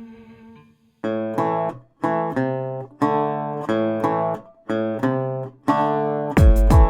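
Guitar music: a held chord fades out, then strummed chords start in a steady rhythm about a second in, and drums join near the end.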